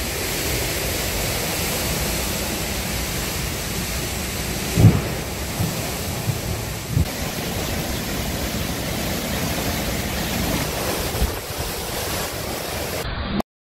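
Derecho winds and driving rain blowing hard and steadily, buffeting the microphone. A loud low thump comes about five seconds in, followed by a few smaller ones. The sound cuts off suddenly near the end.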